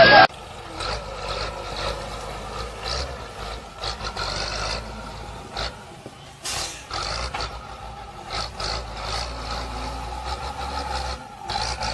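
Heavy construction machinery running: a steady low engine drone with scattered knocks and clanks.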